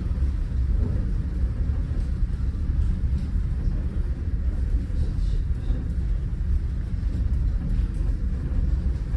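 Steady low rumble of the car ferry Pont Aven under way, heard on board as it comes in to port.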